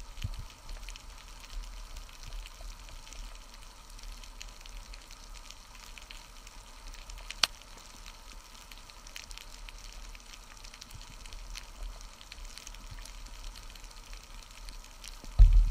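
Underwater ambience over a rocky reef: a faint, constant crackle of fine ticks with a low hum beneath, and one sharper click about halfway through.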